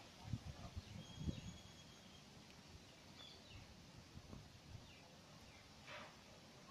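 Near silence with a few faint low knocks in the first second and a half, from a freshly sharpened wooden pencil being handled.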